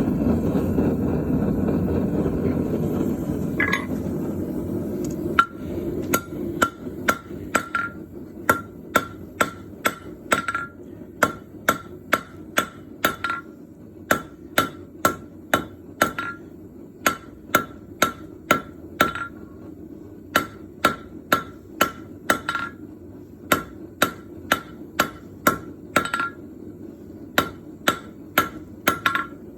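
Hand hammer striking hot bronze on an anvil in a steady rhythm of about two blows a second, with a few short pauses. Each blow gives a short metallic ring. Before the hammering starts there are about five seconds of steady low rushing noise and a single ringing clank.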